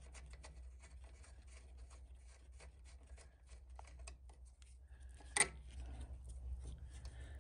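Faint small scrapes and clicks of metal hand work on a lawn tractor's starter: a nut being spun off by hand and wire ring terminals being worked off the terminal stud, with one sharper metallic click about five seconds in. A steady low hum lies underneath.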